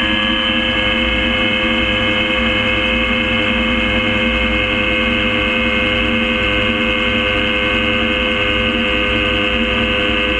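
Gyrocopter engine and propeller running steadily at constant power, a loud unbroken drone of many steady tones.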